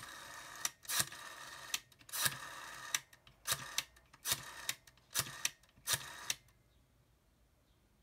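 Rotary dial of a Western Electric desk telephone being wound and released for a run of digits, each pull ending in a sharp click and the dial's clicking return. Dialling stops about six and a half seconds in.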